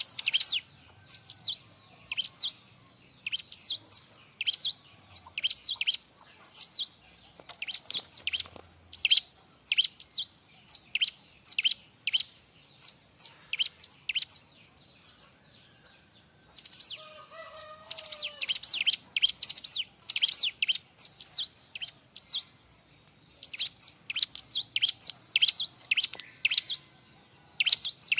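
A bar-winged prinia (ciblek) calling busily in runs of sharp, high chirps, each sweeping down in pitch, a few a second, broken by short pauses of a second or two.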